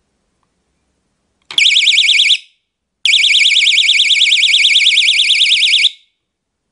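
Small wireless alarm's siren sounding a high-pitched, fast warble that rises and falls about ten times a second. It comes as a short burst of about a second, then a pause, then a longer burst of about three seconds, each starting with a click.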